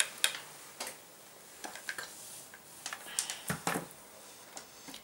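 Light, irregular clicks and taps from a hot glue gun being worked over thin embossed metal foil, with a denser cluster of clicks past the middle.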